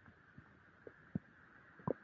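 Stomach gurgling during digestion: a few short, separate gurgles and pops, the loudest just before the end, over a faint steady hiss.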